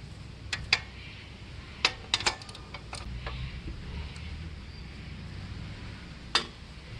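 Wrench and socket clicking against the motorcycle's rear axle nut as it is loosened: a few sharp, irregular clicks, two close together near the start, a cluster around two seconds in and one more near the end.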